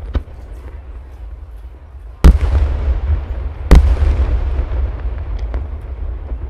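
Large aerial firework shells (ghost shells) bursting: two loud booms about a second and a half apart, each followed by a long fading rumble, with a lighter crack just after the start and another near the end.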